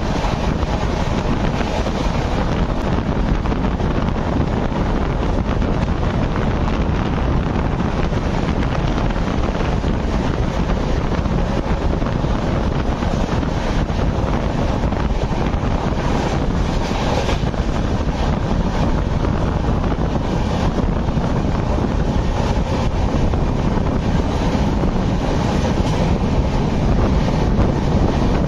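Wind buffeting the microphone held out of the open door of an express train running at speed, over the steady rushing noise of the train on the track. Trains pass close by on the next line, first a suburban local, then a long container freight train.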